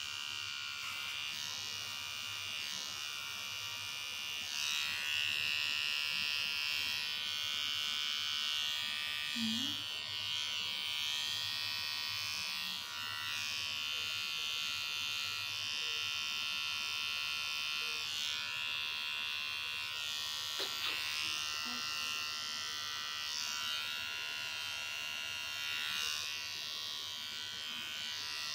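Small electric pet trimmer running with a steady high buzzing whine as it trims the fur on a cat's paw. The whine shifts slightly now and then.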